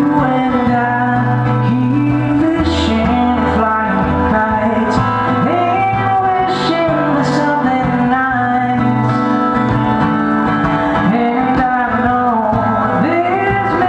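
A man singing a song live while strumming an acoustic guitar, with a steady chord accompaniment under the sung melody.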